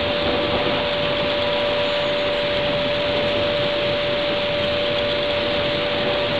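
A British air raid siren holding one steady note over the constant hiss of heavy rain.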